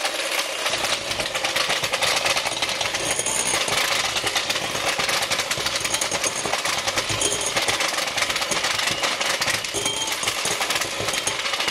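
Electric hand mixer running steadily at speed, its beaters creaming cream cheese and sugar in a glass bowl, with a fast, continuous buzzing rattle.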